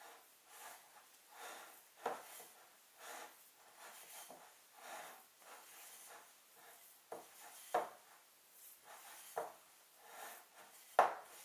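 Hands mixing a soft oily dough in a bowl: soft rubbing strokes about once a second, with several sharp knocks against the bowl.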